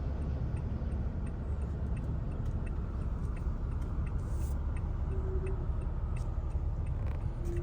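Inside a moving car: the steady low rumble of engine and road noise, with a faint regular ticking about twice a second.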